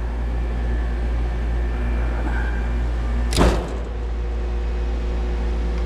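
Goodman heat pump outdoor unit running with a steady low hum, its contactor closed on a call from the thermostat. One sharp clack about three and a half seconds in.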